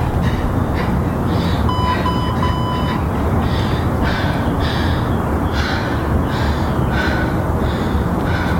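A woman breathing hard and gasping from high-intensity bodyweight exercise, quick even breaths a little more than one a second, over a steady low rumble. About two seconds in, a workout timer beeps three times, the last beep longer, marking the end of the 12-minute countdown.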